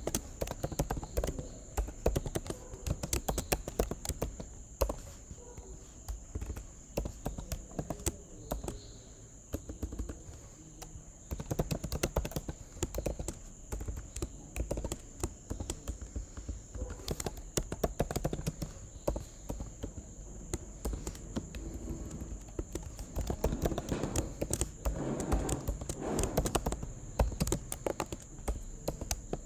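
Typing on a computer keyboard: a fast, irregular run of key clicks with short pauses.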